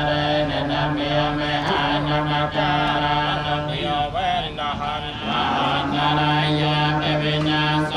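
Buddhist monks chanting a blessing together on a low, steady held note, the voices wavering briefly about halfway through.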